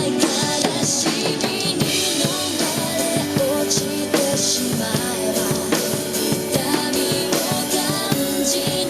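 Drum kit played over a pop-rock backing track, with steady, busy strikes on the drums and cymbals under sustained instrumental melody and no clear singing.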